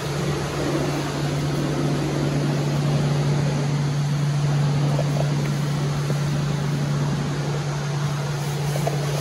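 Steady low mechanical hum with an even rush of air-like noise over it.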